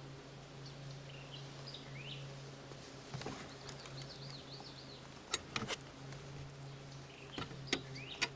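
Birds chirping, with a few sharp knocks or clicks, the loudest a quick cluster of three about five and a half seconds in, over a steady low hum.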